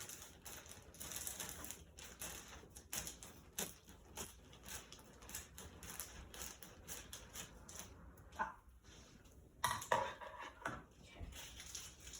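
Toy box packaging being cut open and handled: a dense run of small clicks and crinkles, with a couple of louder short sounds near the end.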